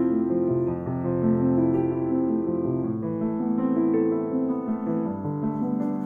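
Background piano music, held notes and chords changing every second or so.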